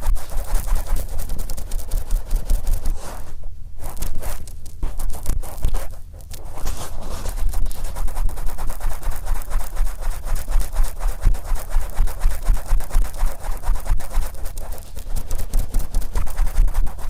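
Oiled, wet cotton swab rubbed over the ear of a binaural microphone: a close, dense crackling scratch, easing off briefly about three and a half and six seconds in.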